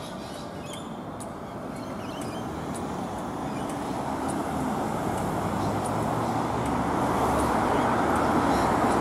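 Road traffic: car tyres and engines growing steadily louder as cars approach and pass close below.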